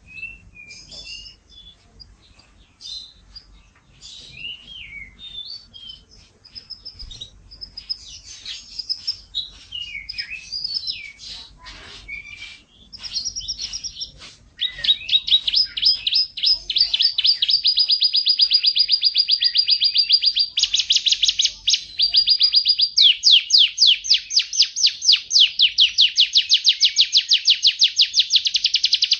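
Young canary practising its song: soft, scattered chirps and twitters at first, then about halfway through loud, rapid rolled trills that switch phrase a few times and run on.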